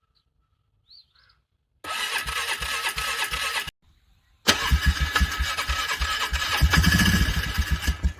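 ATV engine being cranked over by its starter in freezing cold: a short crank of about two seconds, a brief stop, then a longer crank with rapid, even compression pulses. It is a hard cold start; the engine is struggling to turn over.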